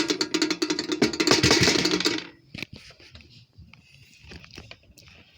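Rapid rattling clicks with a low hum for about two seconds, then quieter, scattered clicks and knocks, as of small objects or a mechanism being handled.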